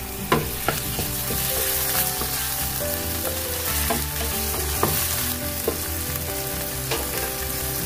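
Raw shrimp sizzling in hot oil and garlic in a non-stick frying pan, stirred with a wooden spatula that knocks and scrapes against the pan now and then.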